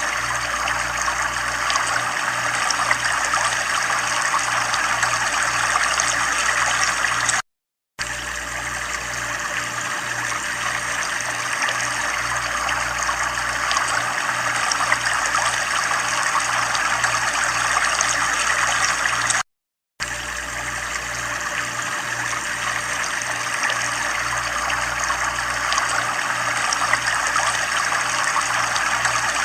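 Steady running water, a continuous trickling rush, with a low hum underneath that pulses about twice a second. The sound drops out to silence twice for a split second.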